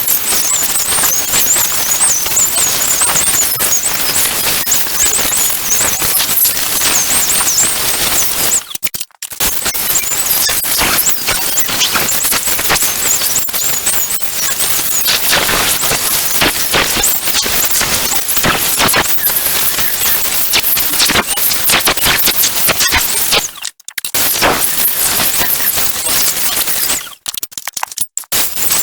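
Angle grinder with a coarse flap disc grinding welded steel brackets: a loud, crackling rasp over the motor's high whine, which wavers as the load changes. It breaks off briefly about nine seconds in and twice more near the end.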